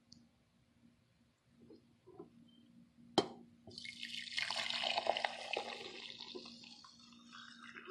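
A single sharp knock, then liquid poured in a stream through a wire-mesh strainer into a metal pot. The pouring starts about a second after the knock and trails off toward the end.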